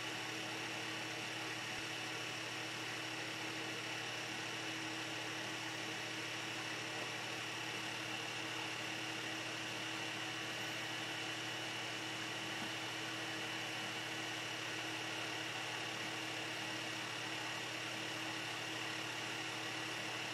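Steady hum of a running electric fan, with a faint high whine and no change throughout.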